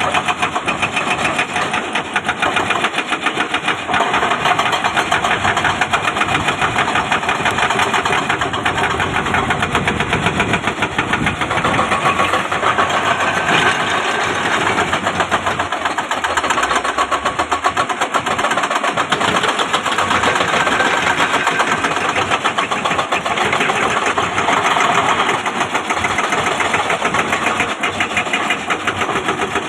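Excavator's diesel engine running continuously with a fast, even knocking pulse, swelling a little now and then.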